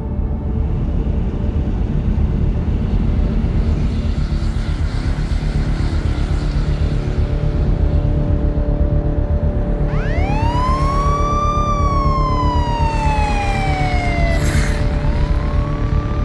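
Police siren wailing: about ten seconds in it climbs quickly, slides slowly down over four seconds, then starts climbing again near the end. Under it runs a dense, steady low rumble.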